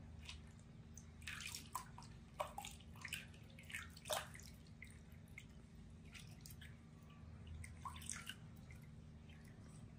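Water scooped by hand and poured over a baby monkey, splashing and dripping back into a plastic basin in clusters over the first few seconds and again near the end. A faint steady hum runs underneath.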